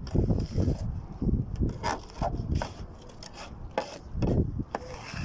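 Long-handled shovels scraping and digging into sand, in uneven strokes with a few sharp clicks.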